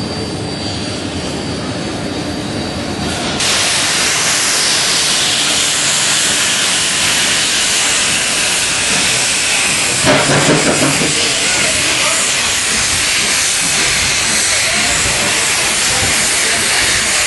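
Steam locomotive running alongside with a loud, steady hiss of steam that starts suddenly about three seconds in, over train running noise, with a short louder burst about ten seconds in.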